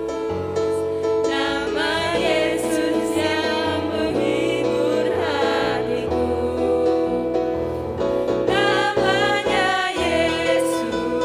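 Christian worship song for children: voices singing over instrumental backing with a steady bass line.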